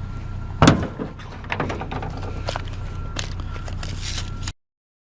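A heavy thunk about half a second in, then lighter knocks and rattles of scrap being handled and loaded, over a steady low hum. The sound cuts off abruptly shortly before the end.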